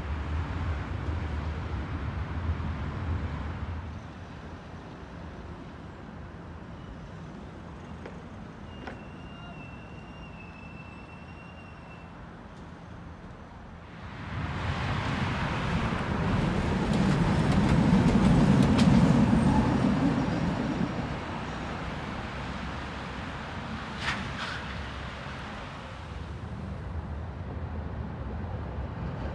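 Night city street traffic ambience with a steady low rumble. About halfway through, a vehicle passes close: its low drone swells over several seconds and then fades.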